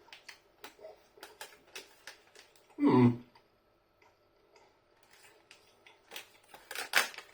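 Close-miked chewing of a breaded chicken snack bite: irregular soft clicks and crunches from the mouth, with one short, louder low hum about three seconds in.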